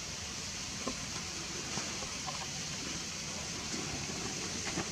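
Steady outdoor background hiss with a few faint, short sounds scattered through it.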